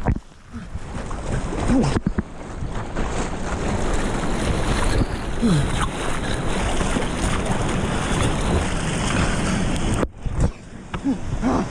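Rushing, churning whitewater of a high-water Class III+ river rapid breaking over the raft and camera. The sound goes briefly muffled just after the start and again about ten seconds in, as the camera is plunged under the water.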